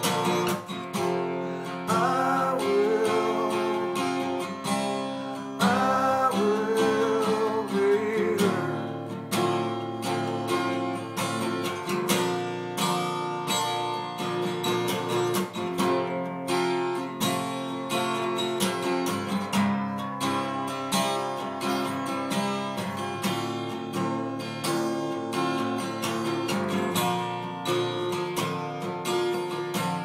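Steel-string acoustic guitar strummed steadily in chords. A wordless voice wavers over it twice in the first nine seconds.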